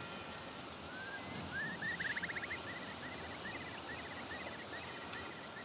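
A bird chirping over a faint outdoor hiss: a couple of rising notes about a second in, then short rapid trills repeated about twice a second, loudest around two seconds in.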